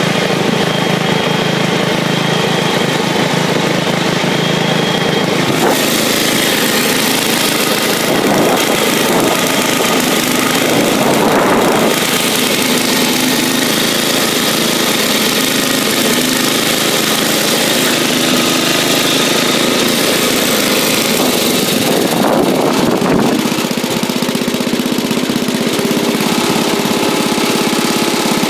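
Bolens garden tractor engine running steadily while the tractor drives along.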